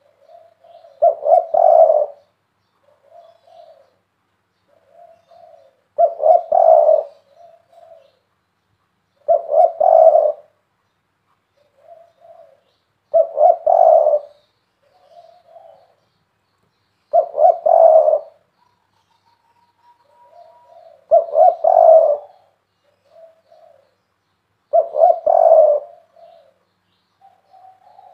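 Spotted dove (tekukur) cooing: a loud, deep phrase about every four seconds, with softer short coos in the gaps between.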